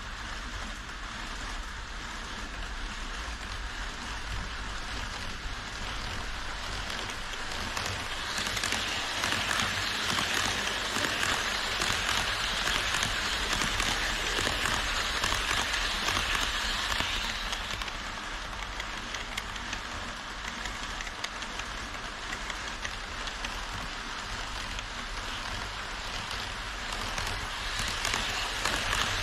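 HO-scale model E5 series shinkansen running on the elevated track: a steady rushing clatter of small metal wheels on the rails, with the model's motor humming underneath. It grows louder about eight seconds in as the train runs close past, eases after about seventeen seconds, and rises again near the end.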